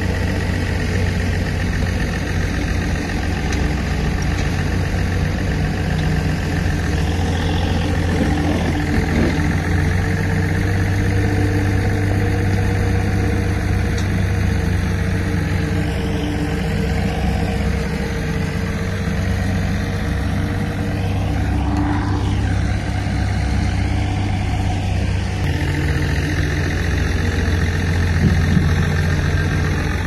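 Diesel engine of a D60 crawler bulldozer running steadily, its low note shifting a little about three-quarters of the way through.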